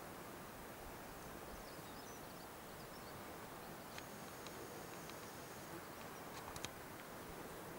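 Faint outdoor mountain ambience over steady recorder hiss, with a few faint high bird chirps in the first half. About four seconds in, a thin high whine from the camcorder's zoom motor runs for about a second, and a few small handling clicks come near the end.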